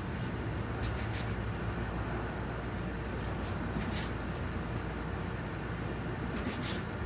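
Knife slicing through smoked brisket on a cutting board: faint taps and scrapes at irregular moments, over a steady low hum.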